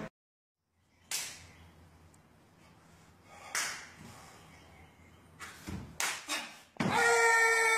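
Sharp swishes of a martial artist's gi snapping with fast strikes during a karate kata, a few single ones spaced apart and a quick cluster, then a loud held kiai shout lasting about a second near the end.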